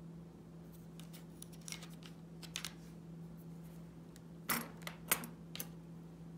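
Small clicks, taps and rustles of fingers handling little kit pieces and a paintbrush on a cutting mat, the loudest two clicks about four and a half and five seconds in, over a steady low hum.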